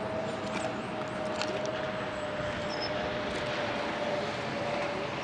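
Electric multiple-unit train (a Southeastern Networker) approaching slowly, a steady whine from its motors slowly dropping in pitch over a background rumble. Birds chirp over it.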